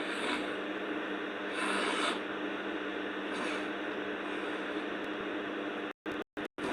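A sleeping girl breathing noisily, with a brief airy breath every couple of seconds over a steady hiss and hum. Near the end the sound cuts out three times in quick succession.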